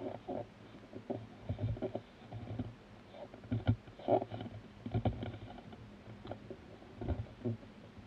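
Handling noise of a metal jack plug's shroud and a speaker cable being fitted together by hand: scattered light clicks and small knocks with rustling, at no steady rhythm.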